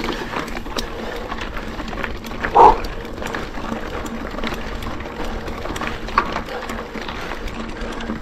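Mountain bike riding uphill on a dirt trail, heard from a chest-mounted camera: steady tyre and riding noise with small rattles and clicks from the bike. One short, louder sound comes about two and a half seconds in.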